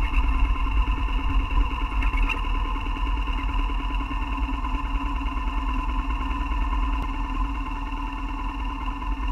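BMW R1200GS boxer-twin engine running steadily while the motorcycle is ridden, with a strong low rumble.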